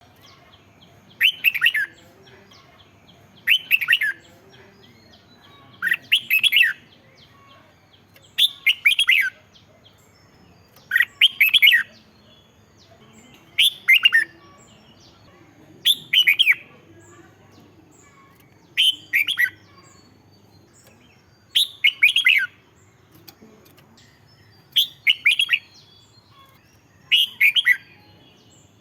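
A red-whiskered bulbul singing: short phrases of a few quick, falling whistled notes, repeated about every two and a half seconds, eleven times.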